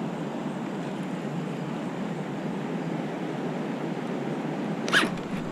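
Steady rushing outdoor background noise, with one short, sharp zipping sound near the end.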